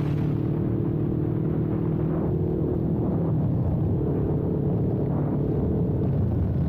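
Kawasaki Ninja 400's parallel-twin engine running at a steady pace under way, its note shifting slightly about halfway through, with wind rushing over the camera's internal microphone.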